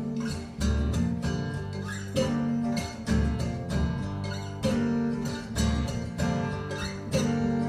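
Recorded music playing through Triangle Borea BR03 BT powered speakers: an instrumental passage of strummed acoustic guitar over a steady bass line, with no vocals.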